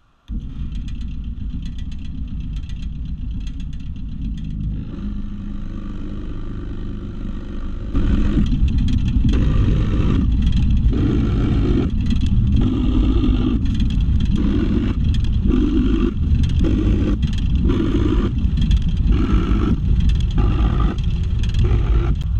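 Drill press and shop dust collector running with a steady rumble. From about eight seconds in it gets louder as a 1 1/4-inch Forstner bit plunges again and again into an oak board, about once a second, drilling a row of holes.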